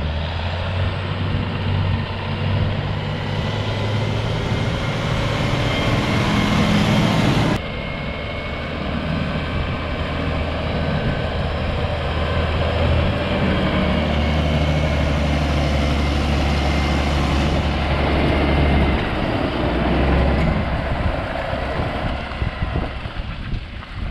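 John Deere 6930 tractor's six-cylinder diesel engine running steadily as the tractor drives along, a low even drone with a sudden drop in level about eight seconds in.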